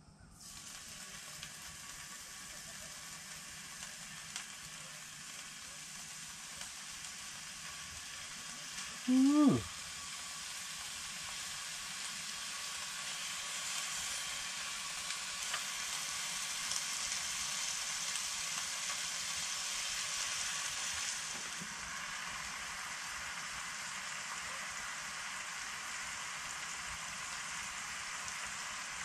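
Strips of bacon sizzling in a cast iron skillet. The frying starts suddenly as the first strip goes in and grows louder as more strips are laid in. About nine seconds in, a brief pitched sound dips in pitch.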